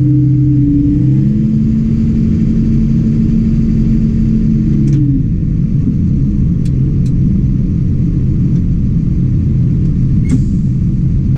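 Tractor engine running, heard from inside the cab as the tractor creeps forward with a loaded trailer; the engine note drops about a second in and again about five seconds in. A few sharp clicks in the second half.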